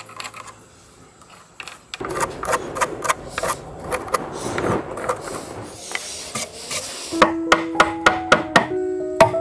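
Scraping and rubbing on bamboo for several seconds, then a wooden mallet driving a chisel into a bamboo tube: a steady run of sharp knocks, about three a second, each with a short ringing tone.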